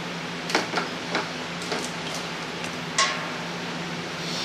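Bung and airlock being worked out of the neck of a carboy of beer: a few light clicks and knocks, with a short squeak about three seconds in. A steady low hum runs underneath.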